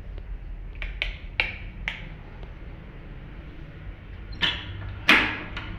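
A few sharp taps about a second in, then two louder knocks near the end, over a steady low hum.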